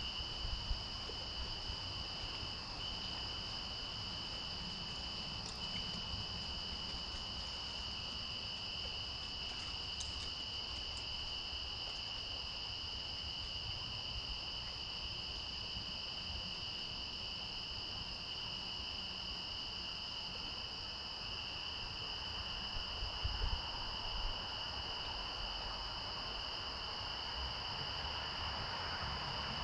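Steady insect chorus, a continuous high-pitched trilling that never breaks, over a faint low rumble.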